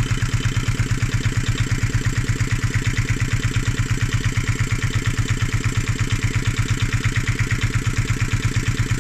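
Yanmar NT65 K single-cylinder diesel engine running at a steady speed, with an even, rapid firing beat that does not change.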